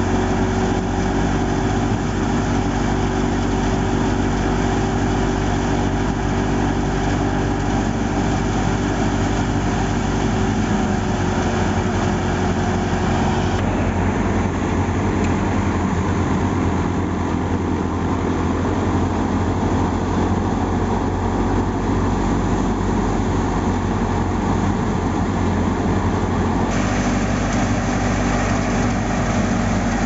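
Tractor-driven wheat thresher running steadily while threshing: the New Holland Fiat 640's diesel engine under load powering the thresher drum through belts, a constant mechanical drone.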